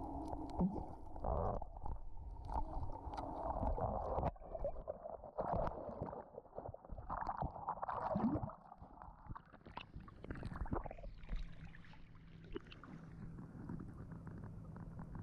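Underwater sound of a scuba diver's breathing: exhaled bubbles gurgling and rumbling in surges, with scattered sharp clicks.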